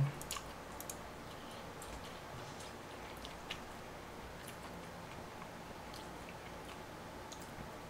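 Faint eating sounds: mouth chewing on spicy noodle soup, with a few light clicks of metal tongs and a spoon against the bowl as noodles are stirred and lifted.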